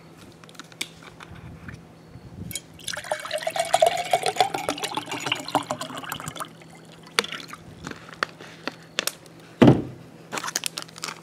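Water poured from a plastic bottle into a glass measuring pitcher, splashing for about three and a half seconds with a pitch that rises as the pitcher fills. A few light clicks follow, and a single thump about a second and a half before the end.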